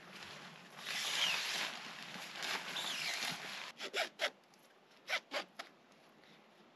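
Heavy canvas rustling and flapping as a large tent is unfolded, then a nylon webbing strap pulled through its buckle in quick tugs, two sets of three short zipping strokes about a second apart.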